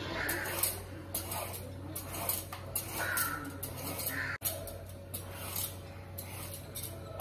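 Metal Y-peeler scraping the skin off a snake gourd in short repeated strokes, about one a second, with a brief break about four seconds in.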